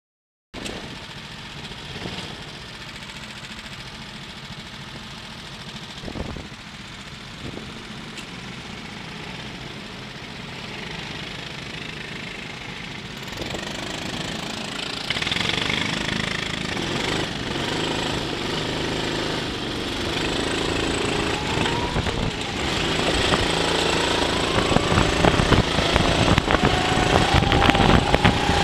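Kart engines heard on board a racing kart. The engines run fairly quietly at first, then grow louder about halfway through as the karts pick up speed. Near the end the engine pitch rises and falls as the kart accelerates and lifts through corners.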